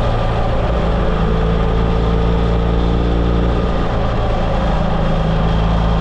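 Motorcycle engine running at steady revs while riding, with a constant low drone and road noise.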